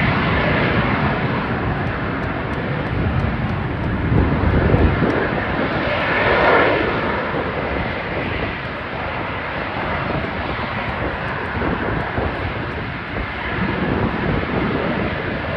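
Military aircraft engine noise as an aircraft flies past, a steady roar that swells to its loudest about six seconds in and then eases off.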